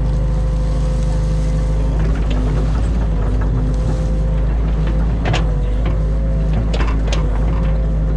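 New Holland Kobelco E 50.2 mini excavator's diesel engine running steadily under load, with a steady whine over the engine hum. A few sharp knocks from the arm and bucket come about five seconds in and again near seven seconds.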